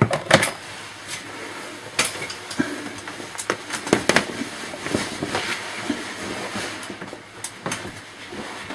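Irregular clicks and knocks of a laptop's plastic case being handled and shifted about on a work surface.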